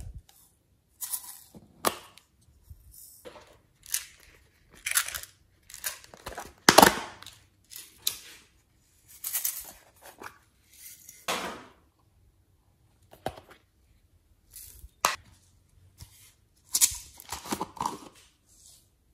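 Small plastic containers being handled and opened: an irregular string of short plastic crackles, rustles and sharp clicks and snaps of lids, with a pause of about two seconds past the middle.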